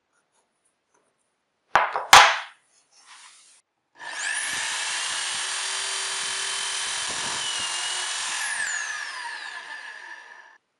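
Two sharp knocks about two seconds in. Then a power drill in a homemade drill-press stand spins up with a rising whine, runs steadily while boring a hole through a small plywood block, and winds down with a falling whine near the end.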